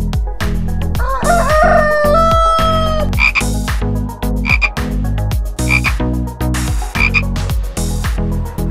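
A rooster crows once, about a second in. A frog follows with short double croaks about every second and a half. Background music with a steady beat plays underneath.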